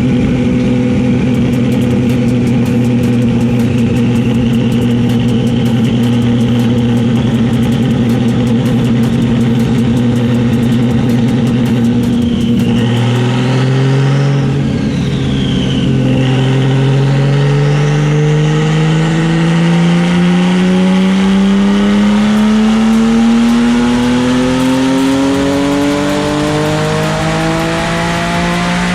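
Twin-turbo Porsche 996 flat-six engine running on a chassis dyno: it holds a steady note for about twelve seconds, dips briefly, then climbs smoothly and continuously in pitch through a long dyno pull that ends just at the end.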